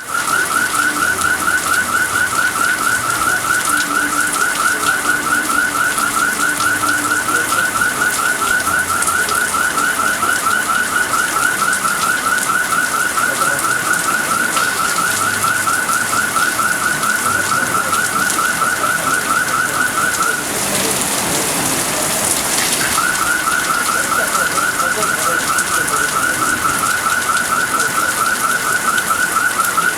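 Steady rain hissing outside a window. Over it runs a fast, regular, high-pitched chirping, several chirps a second, which stops for about two seconds past the two-thirds mark and then resumes.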